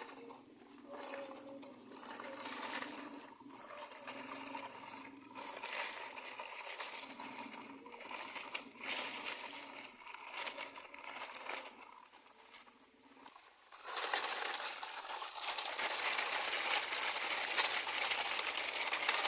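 Small stones clattering and scraping in short ticks and rattles as toy trucks are loaded and pushed through gravel. About two-thirds of the way in, a louder, steady hiss takes over.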